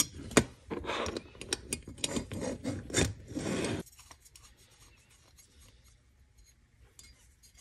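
Small parts of a 3D-printer bed assembly being handled and fitted together by hand: a run of sharp clicks and scraping rubs for about four seconds, then only a few faint clicks.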